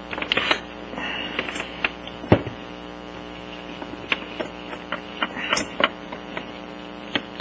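Small metal clicks and scrapes as a piston ring on a Kymco Super 9 scooter engine is squeezed with a thin screwdriver while the finned cylinder is worked down over the piston, with one sharper knock about two seconds in. A steady low hum runs underneath.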